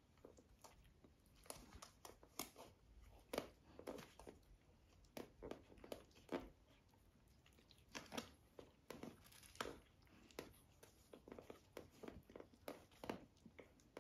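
Puppies scrambling over their mother and a cushion in a wooden crate bed: faint, irregular rustling, scratching and soft knocks.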